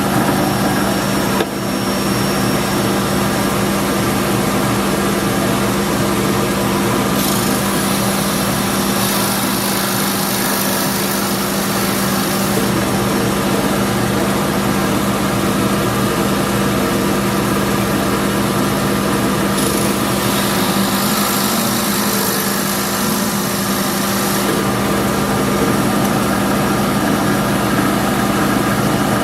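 Electric power tool motor running with a steady hum while cutting wooden plugs, with two stretches of harsher high hissing, about seven seconds in and again around twenty seconds in, as the cutter bites into the wood.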